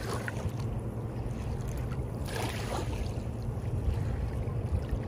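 Small ripples lapping and washing over shell-strewn sand at the water's edge, with one slightly fuller wash about two and a half seconds in, over a steady low rumble.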